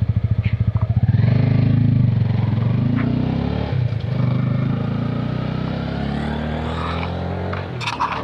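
Small motorcycle engine ticking over with an even pulse, then revving up about a second in as it pulls away, and slowly fading as it runs on. A few sharp clicks near the end.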